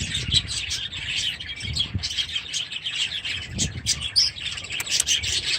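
Aviary flock of budgies and cockatiels chirping and chattering, a dense run of short high chirps.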